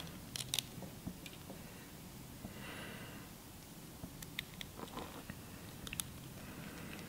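Faint, scattered small clicks and ticks of a precision screwdriver working the tiny screws of an iPhone 6 screen's metal LCD backplate, over a faint steady low hum.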